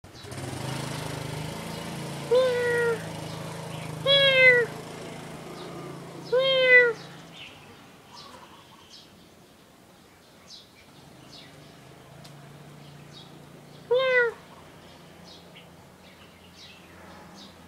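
A cat meowing: four short meows, three close together in the first seven seconds and one more about fourteen seconds in.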